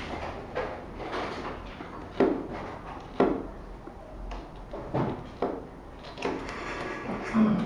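Cardboard box being handled and its top flap pried open by hand: a series of sharp, irregular taps and scuffs of cardboard.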